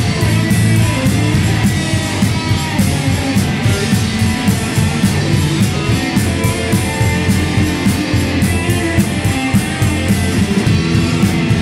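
Rock band playing live: guitars over a drum kit keeping a steady beat with cymbal hits.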